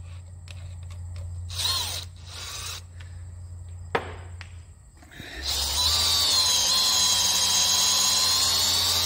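Battery-powered drill turning a valve-guide reamer through the carbon-gummed exhaust/intake valve guide of a Continental O-200 cylinder, reaming out a stuck valve's guide. It starts about five seconds in and runs steadily with a high whine. Before it there are two brief noisy bursts and a sharp click.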